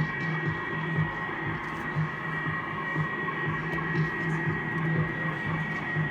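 Amplified electronic hum through speakers: a low drone pulsing about once a second under a steady high whine and a haze of noise.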